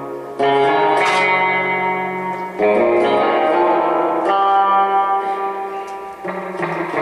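Electric guitar, a Fender Jaguar, played through a Gomez El Sonido Bassman-clone tube amp and a Nocturne F-Bomb 63 spring reverb unit. A new chord is struck about every two seconds and left to ring, with reverb trailing behind each one.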